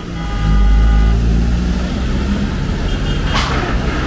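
A bus's engine rumbling as it passes close by, loudest about half a second to a second in. A horn sounds for about a second at the start, with a brief toot again about three seconds in.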